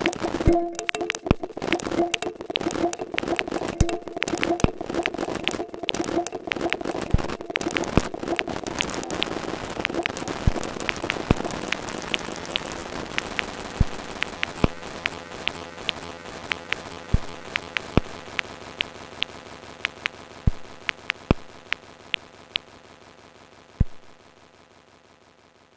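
Electronic music played live on Elektron grooveboxes, winding down: a dense crackle of sharp clicks, like rain, with a few sustained pitched tones in the first several seconds. The clicks then thin out to scattered ticks, and everything fades away, with one last louder click shortly before it dies out.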